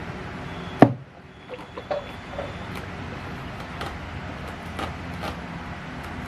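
A single sharp knock a little under a second in, followed by a few faint clicks and taps over a steady low background hum.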